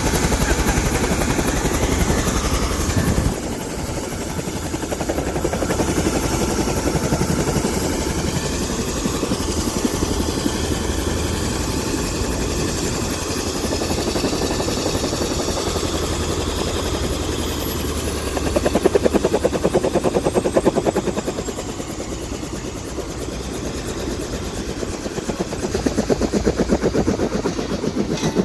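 Single-engine turbine helicopter, an AS350 Ecureuil, running on the ground with its rotor turning: a steady, loud engine and blade beat. It swells louder for a couple of seconds about two-thirds of the way through.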